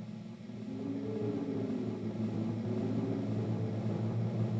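Motor-like droning sound effect, a steady low hum with a brief rising whine about a second in, slowly growing louder.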